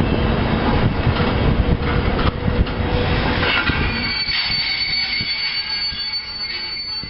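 Train of vintage passenger coaches rolling past on the rails, the wheels rumbling with scattered clicks. About four seconds in, a thin, steady high wheel squeal joins as the rumble fades with the train moving off.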